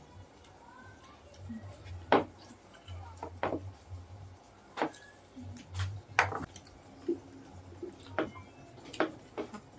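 Eating at a table: about seven sharp clicks and clinks of a spoon and fork against plates and bowls, mixed with smacking while chewing, over a low steady hum.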